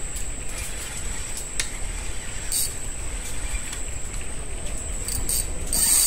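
A steady high-pitched insect trill, like crickets, over a constant low rumble, broken by a few short scratchy bursts, the strongest near the end.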